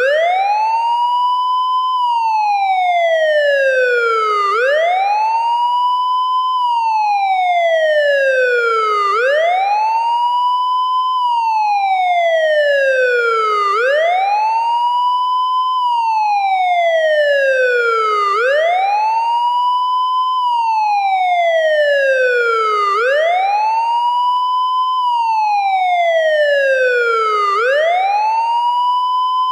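Police siren sounding a wail: the tone sweeps up quickly, holds briefly at the top, then slides slowly back down, repeating evenly about every four and a half seconds with no other sound.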